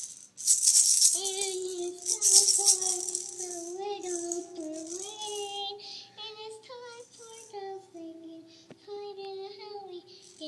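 Toy maraca shaken hard for the first few seconds, then a young girl sings long, wavering vocal runs, her pitch sliding up and down.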